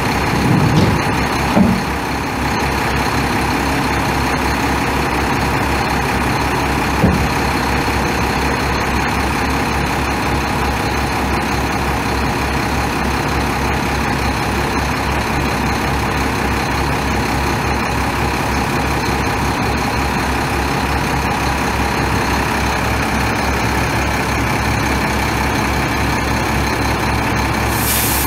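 Cummins ISC 8.3-litre inline-six turbo diesel of a Freightliner FLD dump truck idling steadily, with a few low thumps in the first two seconds and a short high hiss near the end.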